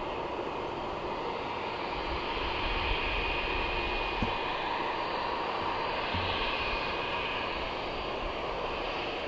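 An Airbus A320's IAE V2500 jet engines running at low taxi power: a steady whine over a low rumble that swells a little midway through.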